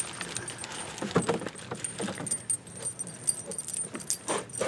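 Light metallic jingling and scattered small knocks and rustles as a person climbs into and settles in a plastic sit-in kayak on grass, with a sharper knock about a second in and another near the end.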